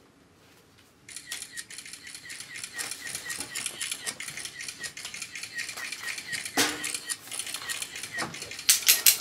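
Rapid close-up scratching and tapping of a makeup tool worked over the face. A few sharper clicks stand out near the end.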